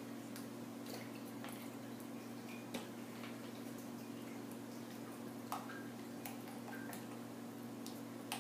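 Faint, scattered light clicks and taps of small plastic containers and utensils being handled, over a steady low hum.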